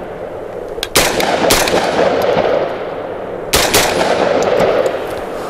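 Genesis Arms Gen-12 semi-automatic 12-gauge shotgun firing four shots, two about half a second apart, then a quick pair a couple of seconds later, each trailing off in a long echo.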